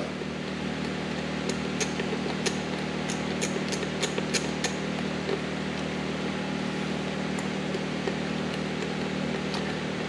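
Steady mechanical hum of shop machinery. Over it, a scatter of light clicks for a few seconds near the start as the bead-lock thumb wheels on a kart wheel are turned by hand.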